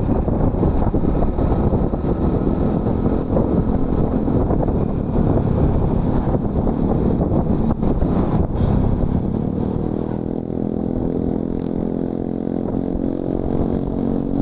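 Motorcycle engine running on the move, with wind buffeting the microphone. Over the last few seconds the engine note becomes a clearer, steadier hum.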